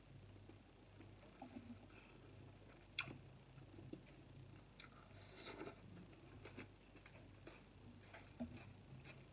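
Faint close-up mukbang eating sounds: a person chewing a mouthful of hot pot noodles, with small clicks throughout, one sharper click about three seconds in and a short hissy burst a couple of seconds later.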